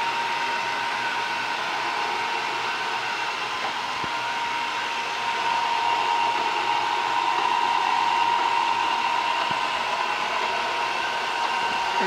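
Roomba robot vacuum running on a tile floor: a steady whirring hum from its vacuum motor and brushes with a high whine on top, growing a little louder about five seconds in.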